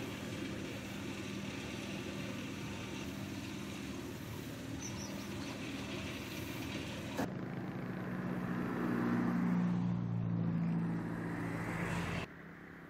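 An engine running steadily. After a cut about seven seconds in, a louder engine swells and then eases off, and stops abruptly near the end.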